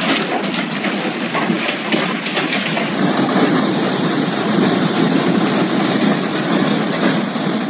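Heavy hail pelting down: a loud, dense clatter of countless small impacts. About three seconds in it cuts to another hail recording.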